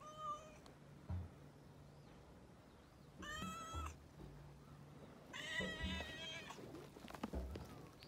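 Tabby cat meowing three times: a short call at the start, another about three seconds in, and a longer, louder one past the middle.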